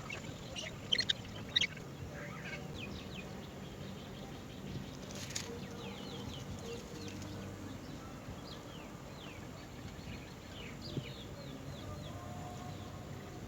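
Birds chirping: many short, high chirps that slide downward, coming in quick runs, with one brief scratchy burst of noise about five seconds in.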